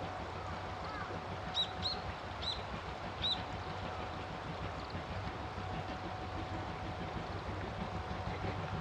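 A small bird gives four short, high chirps a couple of seconds in, over a steady low outdoor rumble and hiss.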